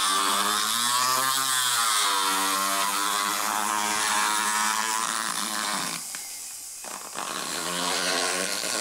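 Motorized equine dental float (power float) grinding down a horse's teeth. Its motor whine rises and falls in pitch as the rotary head bears on the teeth. It cuts out briefly about six seconds in, then starts again.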